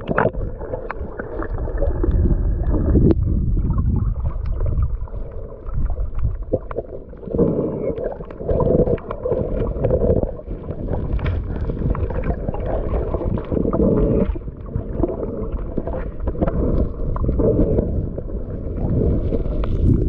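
Muffled underwater rumble and gurgling of water moving around a submerged camera, swelling and fading, with scattered faint clicks.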